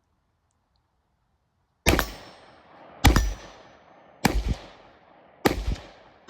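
AR-style rifle in 5.56 fired in slow, evenly paced single shots about a second and a quarter apart: four sharp reports with a short echo after each, starting about two seconds in, and a fifth right at the end.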